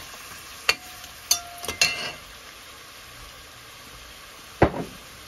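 Metal spoon clinking and scraping against a hammered metal pot as beef cubes are stirred in hot oil, the pot ringing briefly after a few strikes, over faint sizzling. A single heavier knock comes near the end.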